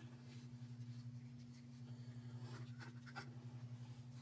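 Faint scratching and rustling as gloved hands handle plastic cups while pouring fluid acrylic paint from one cup into another, over a steady low electrical hum. The scratching comes in a few short bursts, most of it about two and a half to three seconds in.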